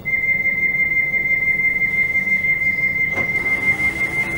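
Door-closing warning tone of a stationary London Overground train: a single high beep held steadily, signalling that the doors are about to shut before departure.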